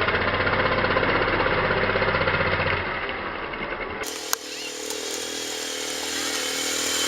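A machine running with a rapid, steady pulse, which cuts off abruptly about four seconds in; after it comes a quieter steady hum with a single click.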